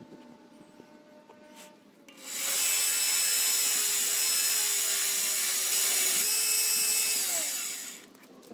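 Small bench belt grinder switched on about two seconds in, running with a steady hum while a steel knife blade is ground against its belt with a loud hissing rasp. It is switched off near the end, its pitch falling as it winds down.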